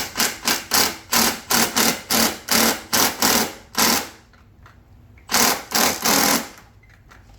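Ratchet wrench swung back and forth on a bolt: a run of quick rasping strokes, about three a second, then a pause and three more strokes.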